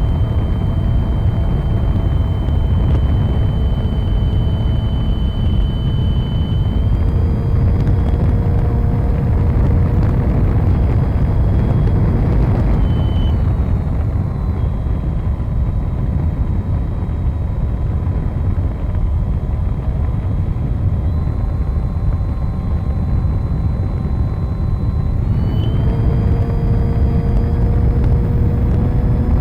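A model plane's motor and propeller whine through the onboard camera, under heavy wind rumble from the airstream hitting the microphone. The whine's pitch steps up or down a few times as the throttle changes, about a third of the way in, near the middle, and again near the end.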